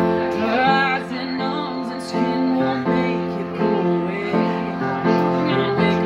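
Women singing live into microphones over an instrumental accompaniment, with held notes that change with the chords.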